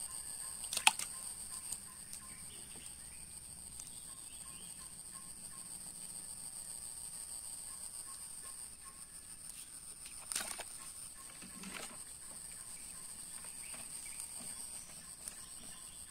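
Insects drone steadily at a high pitch. Over it come a few sharp knocks as a man handles overhanging branches from a wooden boat: the loudest about a second in, and two more around ten to twelve seconds in.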